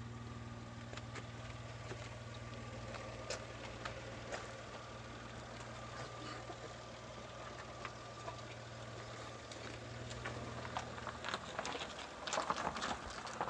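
Small hatchback's engine idling steadily, with a cluster of light clicks and scuffs near the end.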